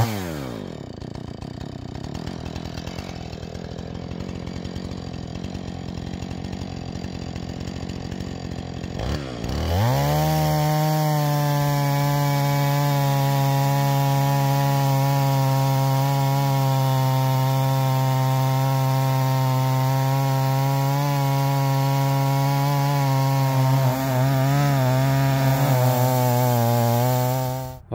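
Husqvarna 445 two-stroke chainsaw with a ripping chain, running in a chainsaw mill: it idles for about nine seconds, then revs up and is held at steady high revs, ripping a log lengthwise into a board. The sound cuts off suddenly near the end.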